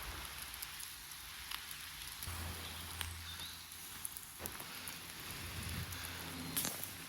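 Campfire crackling softly, a low hiss with a few scattered small pops.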